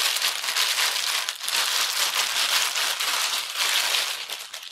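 Clear plastic packaging bag crinkling and rustling as a statue is worked out of it: a dense, continuous crackle that fades near the end.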